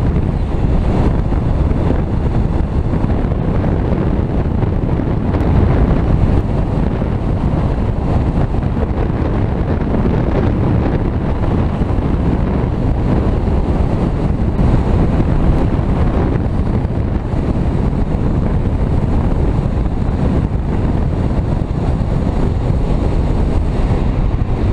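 Steady wind noise from the rushing airflow of speedflying flight hitting the action camera's microphone, heaviest in the low end and with no let-up.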